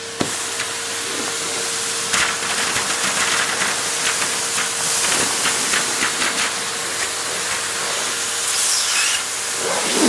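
Vacuum cleaner running through a metal wand, its airflow a steady hiss, sucking small balls off a hardwood floor. A knock comes right at the start, and from about two seconds in a quick run of clicks as the balls rattle up the tube.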